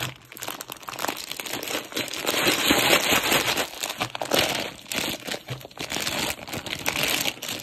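Plastic mushroom grain spawn bag crinkling as it is shaken, swirled and flipped, the loose grain inside shifting and rustling. This is the 'break and shake' that breaks up the colonizing grain to spread the mycelium.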